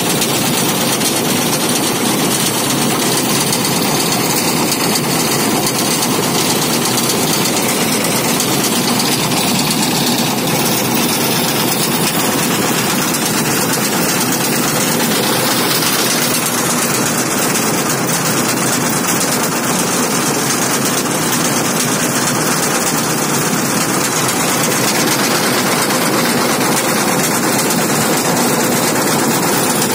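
New Holland combine harvester running: a loud, steady mechanical drone from its engine and working parts.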